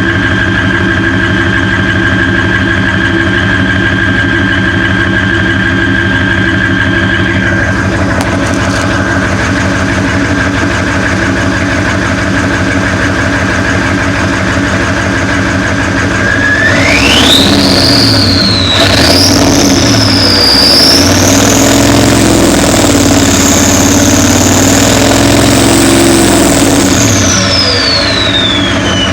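Ford 7.3 IDI V8 diesel with a drop-in turbocharger idling, its turbo giving a steady high whistle. About halfway, the engine is revved and the whistle climbs sharply, dips briefly, then climbs higher and holds for several seconds. It glides back down as the engine returns to idle near the end.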